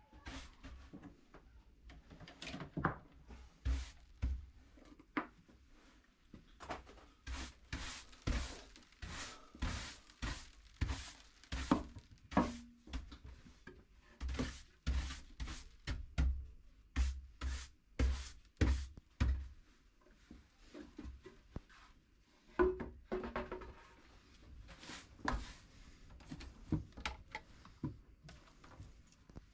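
Intro music driven by heavy, sharp drum hits.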